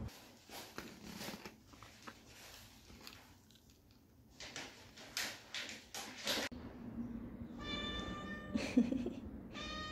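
A Siamese cat meowing twice near the end, two high, steady calls about two seconds apart, after faint rustling and clicks.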